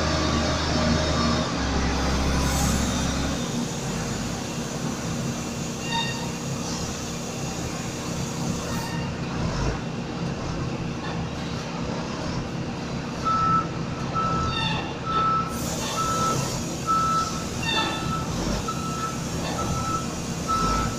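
SDLG LG938L wheel loader's diesel engine running under load as it lifts and tips a bucket of sand into a hopper. From about two-thirds of the way through, a backup alarm beeps a single high tone, roughly one and a half beeps a second.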